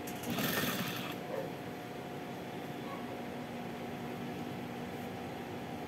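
Sewing machine running with a steady motor hum, a short burst of noise about half a second in as the fabric is worked under the presser foot.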